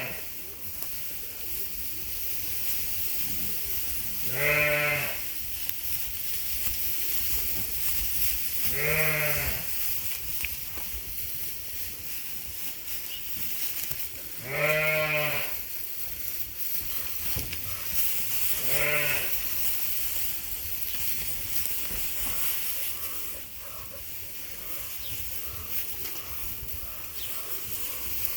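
Sheep bleating: four separate wavering calls spaced several seconds apart, over a steady hiss.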